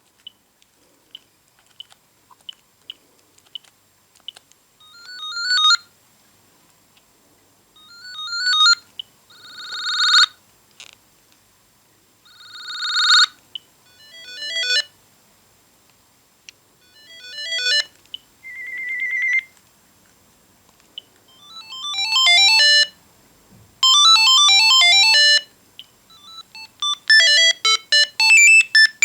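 Siemens Gigaset A120 cordless phone playing its ringtone melodies one after another. Each is a short electronic tune that starts quietly and grows louder before breaking off. Short key beeps come in the first few seconds.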